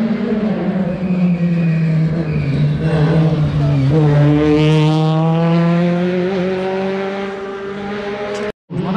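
Rally car engine passing close at speed: the note drops as the car slows for the bend about four seconds in, then the revs climb steadily as it accelerates away. The sound cuts out briefly near the end.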